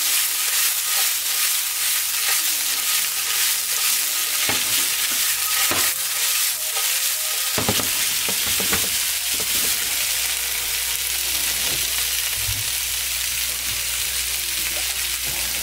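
Cut rice noodle sheets (phở cuốn) sizzling in a hot pan as they are stir-fried, with a steady hiss and a few knocks of the spatula against the pan.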